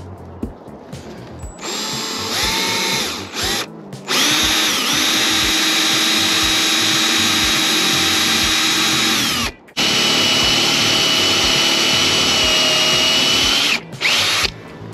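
Ryobi cordless drill spinning a twist bit through the caravan's roof. The motor's whine starts about two seconds in and steps up to a steady high pitch. It stops for a moment just under ten seconds in, runs on again, and ends with a short burst near the end.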